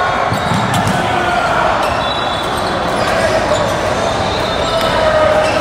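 Echoing din of a volleyball gym: balls being hit and bouncing on the court over a steady background of voices.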